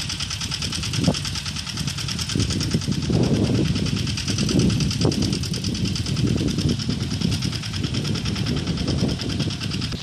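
A small engine running steadily with a fast, even clatter.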